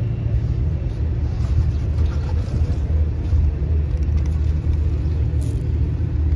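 Steady low rumble of outdoor street background noise, even and unbroken.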